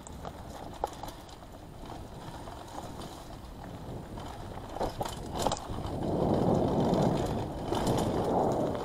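Mountain bike ridden fast down a dirt forest trail: tyres rumbling over dirt and roots and the bike rattling, with a few sharp knocks. The rumble grows louder about six seconds in.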